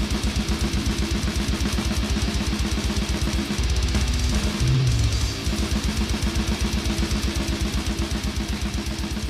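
Death metal music: distorted guitars over drums with fast, even double-bass kick strokes.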